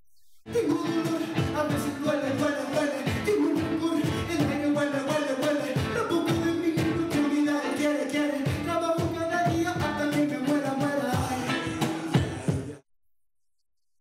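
Live Latin hip-hop band music: a lead vocalist on microphone over guitar and cajón, with a steady percussive beat. Starts about half a second in and cuts off suddenly near the end.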